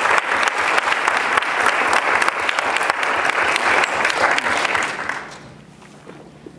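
Audience applauding after a choral piece, dense clapping that thins out and dies down about five seconds in.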